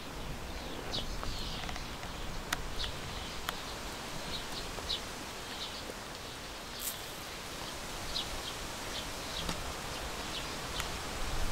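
Scattered short, high bird chirps over a steady outdoor hiss, with a few sharp clicks.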